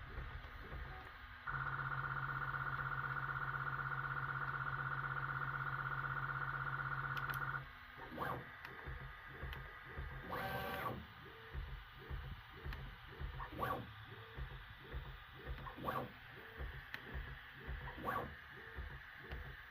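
Bambu Lab P1P 3D printer giving a loud, steady, even-pitched hum from its motors for about six seconds, which then cuts off abruptly. Brief separate sounds follow every couple of seconds.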